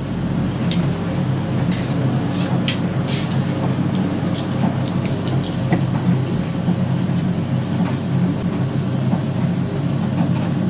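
Whole roast chicken being torn apart by gloved hands: scattered crisp crackles and tears of skin and meat over a steady low hum.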